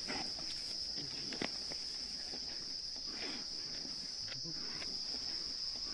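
A steady, high-pitched chorus of crickets, with a few faint short noises in the background.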